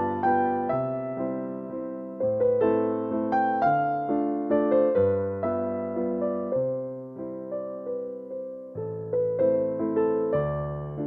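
Background piano music: a gentle melody of struck notes that each fade away, over held bass notes.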